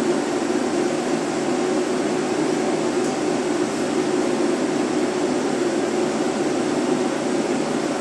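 Ventilation fan running steadily, a constant rushing hum with no change.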